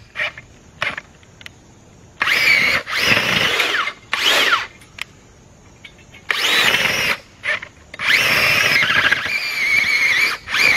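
Makita twin-battery cordless earth auger drilling into loose dirt. Its electric motor whines up in five bursts, each rising in pitch as it spins up, and the last run is the longest, from about two seconds before the end.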